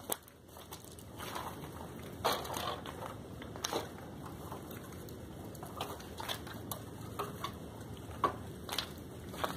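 Gravel crunching underfoot in short, irregular crunches, the sharpest about two seconds in and near the end.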